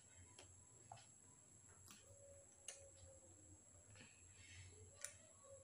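Near silence: room tone with a steady faint hum and a few faint, scattered clicks.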